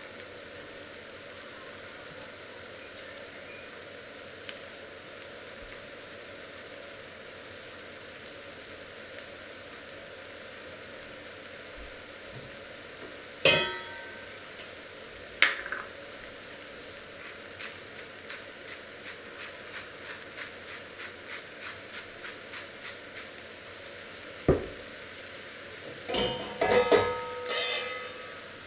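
Diced onions frying in a steel pan with a steady sizzle. Sharp knocks come twice near the middle, then light taps about twice a second, and metal clatters with a ringing tone near the end.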